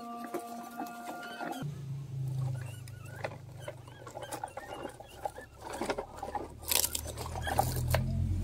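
Plastic toy trucks rolling over dirt and gravel, with scratchy crunching and clicking from the wheels. About a second and a half in, a held pitched tone stops and a low steady hum takes over.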